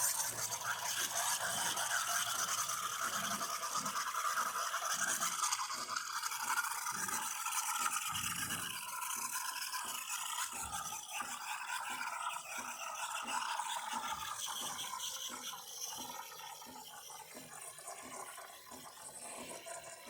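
Steam wand of a De'Longhi Magnifica espresso machine hissing and gurgling as it steams water in a jug, easing off slightly near the end. This is the steam test after a repair for weak steam.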